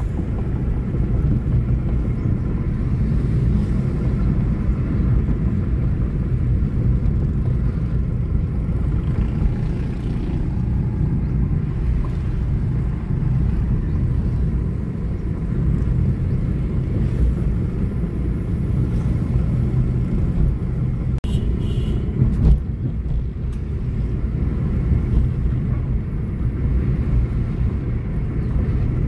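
Steady low road and engine rumble heard from inside a moving car's cabin, with a single short click about two-thirds of the way through.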